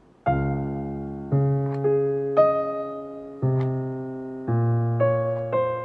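Background piano music: notes and chords struck about once a second, each ringing and fading before the next.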